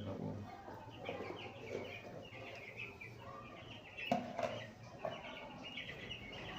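A flock of chickens calling and clucking in many short overlapping calls, with a single sharp knock about four seconds in.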